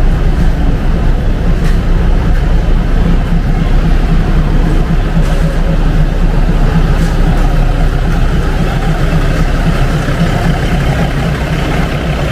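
A large engine idling close by, a loud, steady low rumble.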